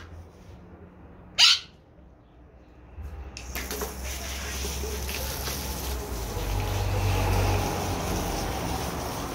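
A garden hose sprays water onto a dog's coat, a steady hiss that starts about three seconds in and swells a little before the end. Earlier there is a single short, sharp, high chirp.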